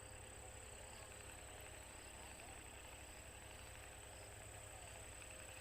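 Near silence: faint outdoor ambience, a steady high-pitched whine over a low hum, with faint short chirps every second or so.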